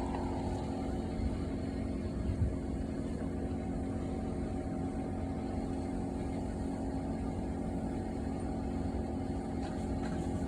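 Steady mechanical hum of a running motor or engine, even throughout, with a faint knock about two seconds in.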